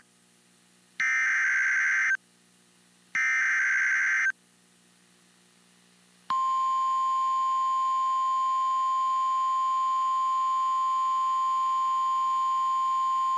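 Two short bursts of NOAA Weather Radio SAME header data, a rapid two-tone digital screech lasting about a second each. About six seconds in, the steady single-pitch 1050 Hz Warning Alarm Tone starts and holds, marking the start of a warning broadcast.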